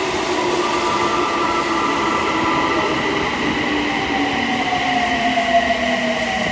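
Subway train braking into the station. Several tones of the electric traction motors slowly fall in pitch over continuous running noise, with a steady high-pitched tone above them.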